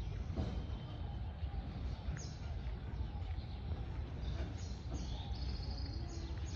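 Small songbirds chirping and calling in short notes, with a quick trill of repeated notes near the end, over a steady low rumble.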